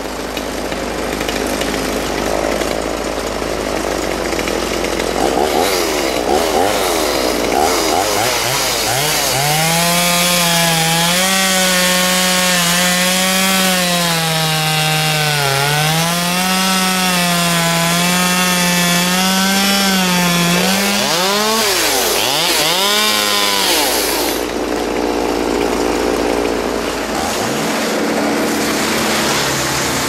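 Two-stroke chainsaw running at full throttle, its pitch dipping and rising as it cuts, for about fifteen seconds in the middle. A wood chipper's engine runs steadily underneath, and its noise is left alone near the end once the saw stops.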